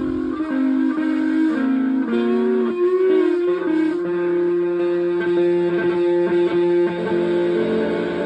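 Electronic tones from a ring modulator and noise generator box with delay. A run of pitched notes steps up and down about twice a second for the first few seconds, then settles into one held tone over a lower drone, which shifts in pitch near the end.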